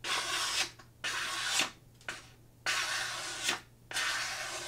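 Knife blade slicing through paper in four long strokes, each under a second, with short gaps between them. This is a sharpness test of the Real Steel Luna ECO's K110 steel edge on slightly moist, not very crisp paper.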